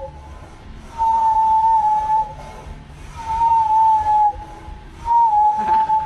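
Walrus whistling through pursed lips: three long whistles on one tone, each lasting about a second with short pauses between, the pitch wavering slightly.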